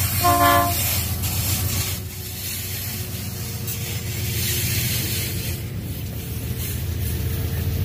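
Diesel locomotive horn gives one short blast right at the start as the lead unit passes close by. It rides over the steady low rumble of the passing diesel locomotives' engines, with a hiss of wheel and rail noise.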